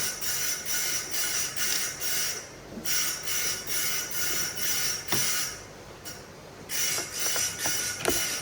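A hand tool worked back and forth in rhythmic strokes, about three a second, each stroke carrying a high, ringing squeal; the strokes pause briefly twice.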